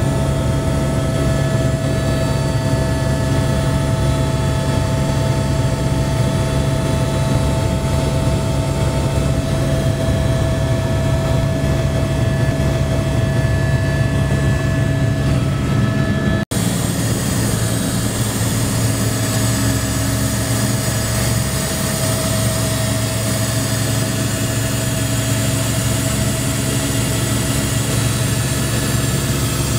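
AS350 Squirrel helicopter in flight, heard from the cabin: a loud, steady rotor and engine drone with steady tones above it. The sound cuts out for an instant about halfway through, then runs on with more rushing hiss.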